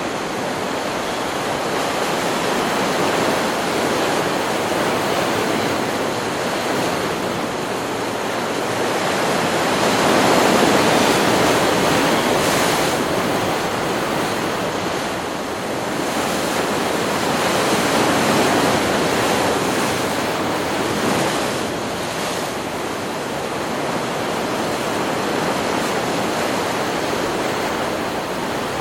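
Ocean surf: waves breaking and washing in as a steady rush of noise that swells and eases over several seconds, loudest near the middle.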